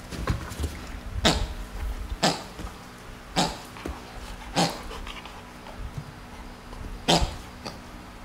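A dog huffing sharply out through its nose five times, spaced about a second apart, with a longer pause before the last one.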